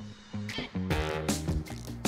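Background music with a steady beat, starting about half a second in after a last spoken word.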